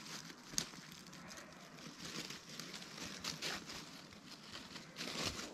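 Rustling and crackling of dry leaves and twigs being disturbed, with a sharp click about half a second in.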